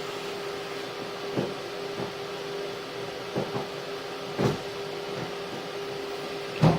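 Steady machine hum with a constant tone, broken by about half a dozen short knocks, the loudest near the end.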